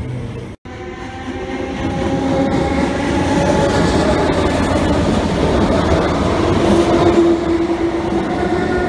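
SNCF Z6400 electric multiple unit running past close by: wheels clattering on the rails and a steady hum, louder from about two seconds in and staying loud. A short dropout to silence comes just after half a second in.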